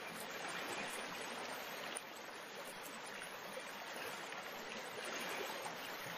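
Soft, steady rushing of flowing water: a river-water ambience.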